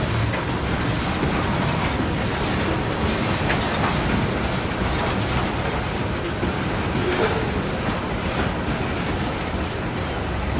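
Norfolk Southern freight cars (covered hoppers, boxcars and tank cars) rolling past close by, their wheels clacking steadily over the rail joints.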